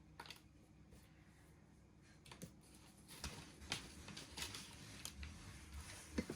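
Faint, scattered light clicks and rustles of hands handling a potted plant, likely easing a Monstera deliciosa out of its nursery pot; quiet at first, with the small handling noises starting about two seconds in.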